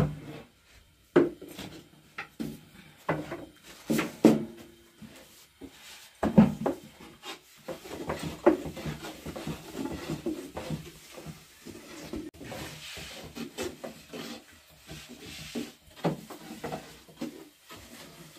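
Thin wooden rolling pin rolling thin flatbread dough out on a round wooden board: wood rubbing and rolling on wood, broken by irregular knocks of the pin against the board.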